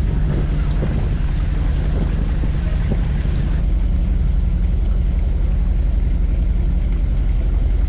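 Fishing boat's engine running with a steady low drone, under a hiss of wind and water that drops off about three and a half seconds in.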